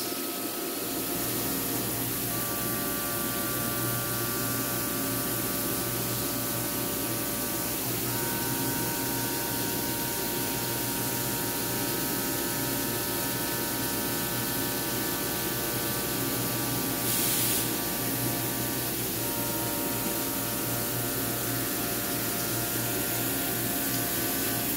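CNC milling machine cutting the edge chamfer on an aluminium plate under flood coolant. A steady spray hiss runs under the spindle and cutter tones, which step to new pitches a few times as the tool path moves along the edge.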